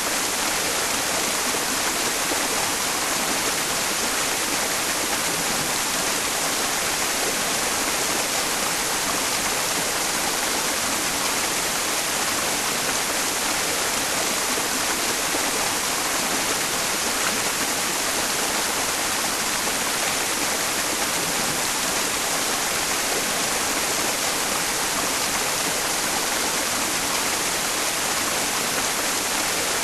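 A mountain stream flowing, blended with steady white noise: an even, unbroken hiss strongest in the upper range, for masking tinnitus.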